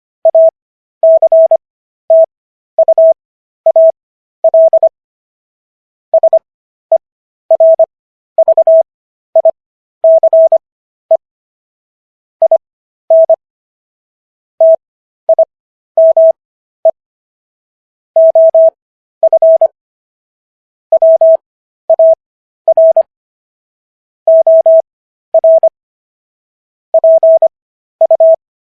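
Morse code: a single steady beep tone keyed on and off in short and long beeps, the dots and dashes bunched into letters with wide gaps between them, at 15 words per minute with the characters sent faster (Farnsworth spacing). It spells out the text of the US Constitution's Fifth Amendment.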